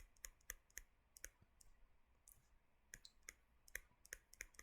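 Faint, irregular light clicks and taps, about a dozen, of a stylus on a tablet while handwriting lecture notes.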